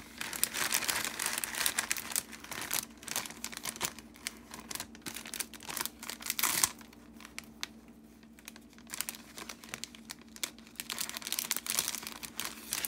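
Clear plastic treat bag crinkling and crackling as it is handled and folded, in irregular bursts that thin out in the middle, with a single sharp click about six and a half seconds in.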